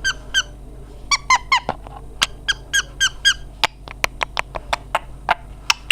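Pet parrot squeaking: quick groups of short, high chirps over the first half, then a run of sharp clicks in the second half.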